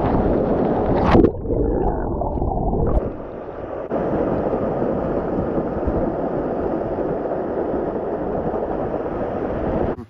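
Waterfall water pouring and splashing right over the microphone, a steady rushing. Between about one and three seconds in it turns quieter and muffled, with gurgling, as water covers the microphone.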